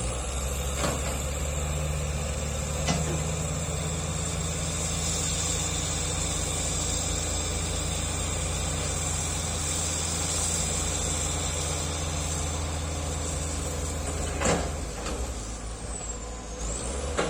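A bulldozer's diesel engine running steadily, with a few sharp clanks over it, the loudest about fourteen seconds in.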